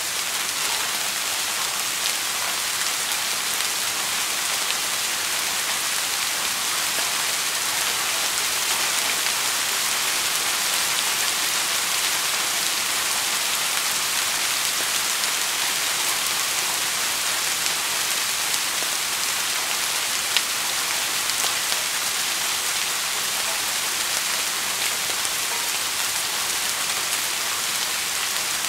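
Steady rain falling: an even hiss of many drops with scattered sharper drop ticks, one a little louder about twenty seconds in.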